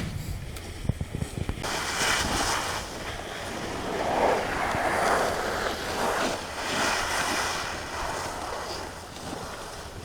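Snowboard sliding and scraping over icy snow, a rough hiss that swells and fades in several surges from about a second and a half in. Before that, wind buffets the microphone with low thumps.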